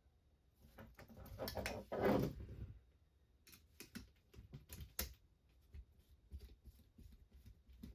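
Handling noise from small RC car kit parts: a rustle, then a run of light, sharp clicks and taps as the parts are fitted together by hand.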